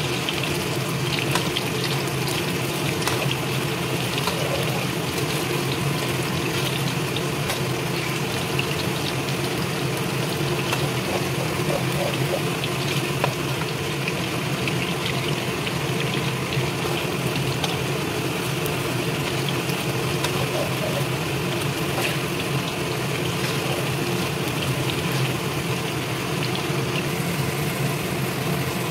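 Sweet potato slices deep-frying in hot oil and caramelizing sugar in a wok: a steady sizzle with fine crackles, over a steady low hum.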